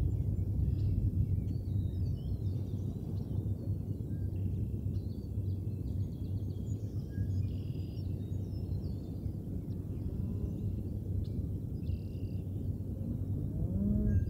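Steady low outdoor rumble on the nest-cam microphone, with faint high bird chirps scattered throughout.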